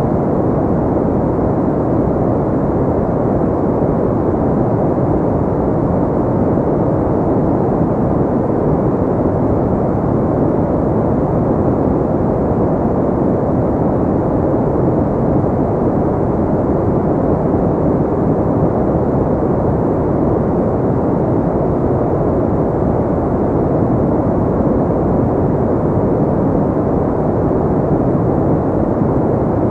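Steady, unchanging pink noise: a deep, even hiss with little treble.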